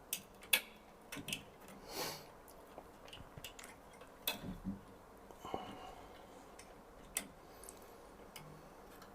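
Faint, irregular small clicks and short rustles from hands working network cable wires and tools, spaced unevenly a second or so apart.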